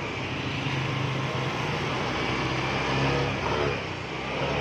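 Yamaha Mio i scooter engine running steadily through a fitted stock Yamaha Aerox muffler, heard as an exhaust sound check.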